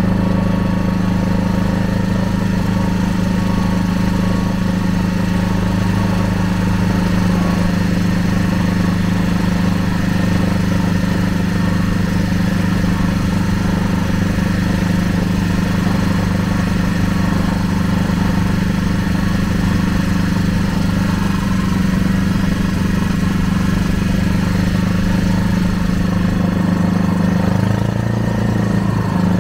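Wooden riverboat's engine running steadily under way, a constant low drone that wavers briefly near the end.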